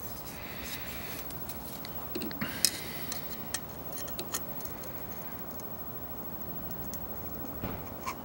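Scattered light metal clicks and taps as a plane iron in an aluminium sharpening jig and a steel combination square are handled and set against each other, most of them in the middle, over a steady background hiss.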